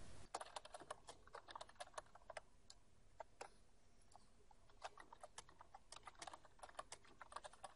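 Faint computer keyboard typing: a run of quick keystrokes, a pause of about a second near the middle, then more keystrokes.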